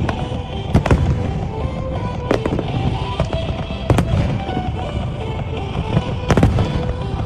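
Aerial fireworks bursting in a string of sharp bangs at irregular intervals, the loudest about one and six and a half seconds in, over continuous background music.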